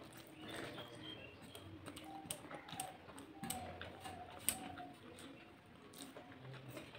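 Eating by hand: scattered small clicks and smacks of chewing and of fingers scraping food across a steel plate, the sharpest clicks about two and a half and four and a half seconds in.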